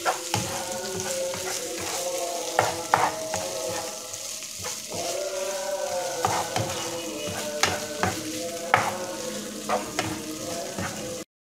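Thin strips of chicken for shawarma sizzling in oil in a pan while a spatula stirs them, with sharp scrapes and taps of the spatula against the pan every second or so. This is the last stage of frying, just after a splash of vinegar went in.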